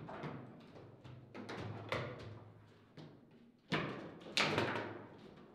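Table football in play: irregular sharp knocks and clacks as the ball is struck by the rod figures and bangs against the table, each with a short ringing decay. The hardest strikes come about four seconds in.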